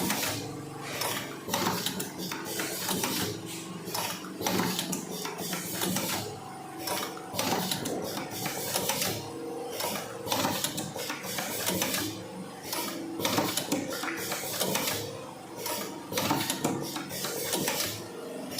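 Vertical automatic cartoning machine running, its mechanism clacking in a steady cycle about once a second over a steady hum.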